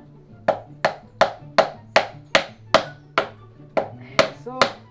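Wooden mallet pounding sticks of wood together, a steady run of about eleven blows, two to three a second, each with a short woody ring. Background music runs under it.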